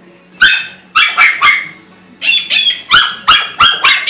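Small dog barking in sharp, high-pitched yaps: four barks, a short pause, then a faster run of barks.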